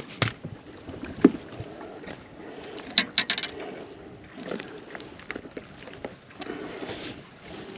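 Water splashing and lapping around a small fishing boat while a walleye is landed, with a few sharp clicks and knocks from tackle and boat gear.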